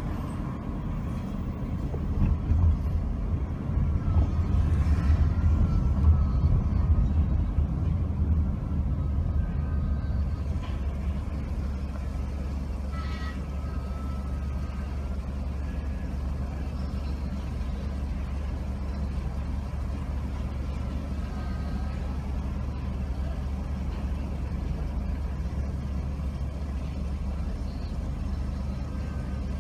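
Low, steady rumble of a car heard from inside the cabin, louder for a few seconds early on as it slows, then idling while stopped at a traffic light.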